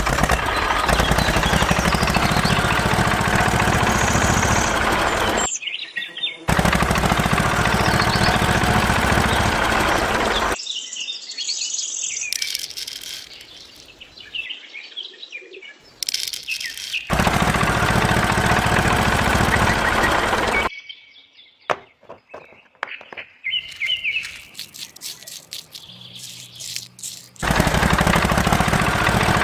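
A miniature model tractor's small electric motor runs with a steady whirring noise in several stretches that start and stop abruptly. In the quieter gaps between them, birds chirp and there are light clicks and rustles.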